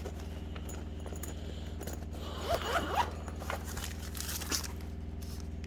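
Rustling and scraping as a handheld Craftsman code reader is handled and lifted out of a tool box drawer, loudest about two and a half to three and a half seconds in, over a low steady hum.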